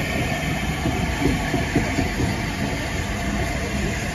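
Steam-hauled train passing close by: the LNER A4 locomotive's tender and then its coaches roll past with a steady rumble of wheels on the rails.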